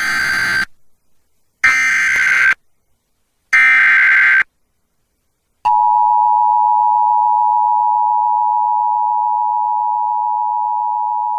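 Emergency Alert System activation received over FM radio. Three short bursts of warbling digital data tones (the SAME header) come first, then about 5.7 s in the steady two-pitch EAS attention signal starts.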